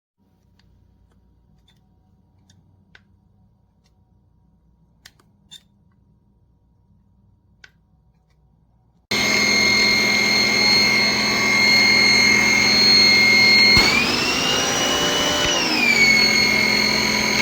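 A few faint clicks, then about nine seconds in a pressure washer starts up loudly with a steady high whine. A few seconds later the whine rises in pitch, holds briefly, then drops back.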